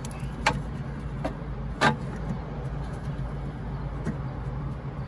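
Plastic fuel-hose quick-connectors being handled and pushed onto a diesel fuel filter, giving two sharp clicks, about half a second and about two seconds in, and a few faint ticks. A steady low hum runs underneath.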